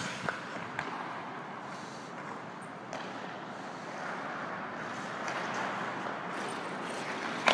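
Ice hockey skates gliding and scraping on rink ice, a steady hiss that grows louder about halfway through as the skater comes closer, with a few light clicks.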